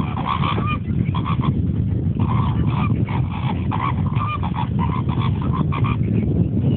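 A flock of greater flamingos calling, many short goose-like honks overlapping in quick succession until they stop about six seconds in, over a steady low rumble.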